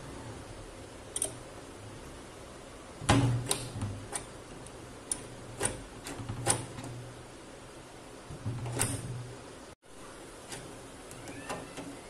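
Handmade steel sliding-bolt door latch being worked by hand: a string of sharp metal clicks and clanks as the bolt slides and knocks against its keeper and the door, loudest about three seconds in.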